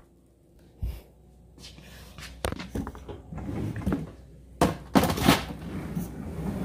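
A plastic food tub being set down into a Bosch freezer drawer: a soft thump about a second in, some handling noise, then a couple of louder knocks and scrapes as the tub goes into the drawer.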